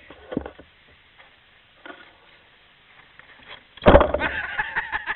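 A few faint knocks, then about four seconds in a loud bump and rustle right at the microphone as the camera is handled up close, followed by a close, muffled voice.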